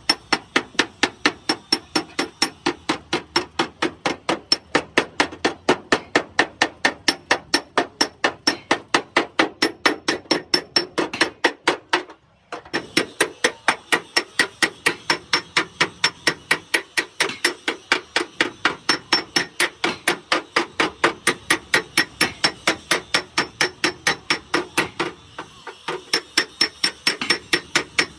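Hammer beating on metal in a fast, even rhythm of about three to four strikes a second, with a brief pause about twelve seconds in; typical of panel beating on a damaged car body.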